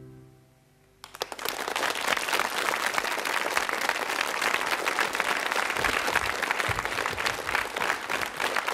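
The last piano chord of a song dies away, and about a second in a studio audience breaks into steady applause that carries on.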